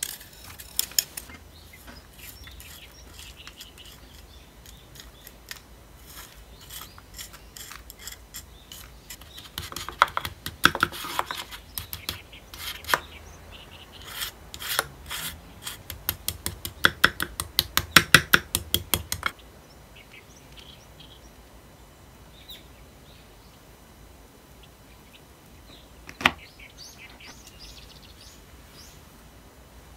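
A spoon scraping and knocking crushed Lotus cookie crumbs out of a glass bowl, then spreading and patting the crumbs down in a metal loaf pan in runs of quick taps and scrapes. It then goes quiet apart from one sharp knock near the end.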